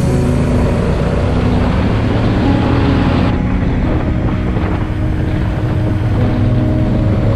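Motorcycle engine running under way, with wind rushing over the camera's microphone. The high hiss drops away abruptly about three seconds in.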